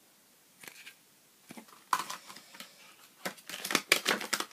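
Handling noise from purchased items and their packaging: irregular rustling and crinkling with sharp clicks. It starts about two seconds in and is busiest near the end.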